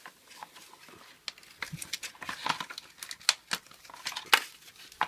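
Irregular sharp clicks, light rattles and crinkling rustles of things being handled.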